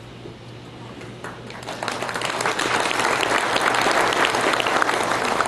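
Audience applauding: clapping starts about a second in, builds quickly and keeps going strongly, over a faint steady hum.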